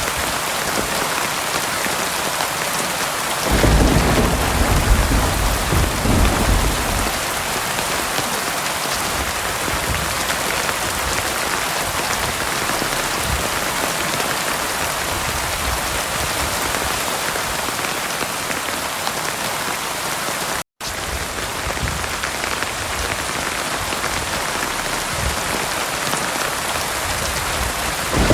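Heavy rain pouring steadily, with a low rumble of thunder rolling in about three and a half seconds in and fading over a few seconds. The sound cuts out completely for an instant about two-thirds of the way through.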